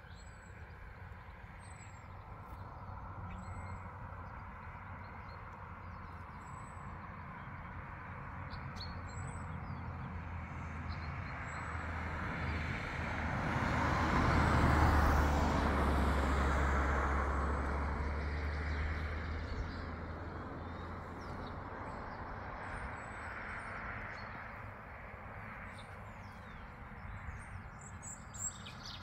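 A road vehicle passing by, its noise swelling to a peak about halfway through and then fading away, over a steady low rumble. Small birds chirp now and then.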